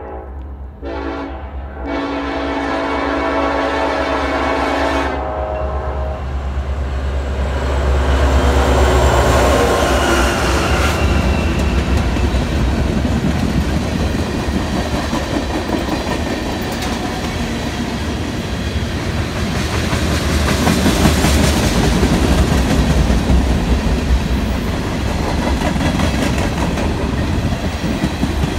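Diesel locomotive horn on a freight train: a short blast and then a long one ending about five seconds in, the close of the grade-crossing signal. Then the locomotive's engine and a string of freight tank cars roll past with a steady heavy rumble of wheels on rail.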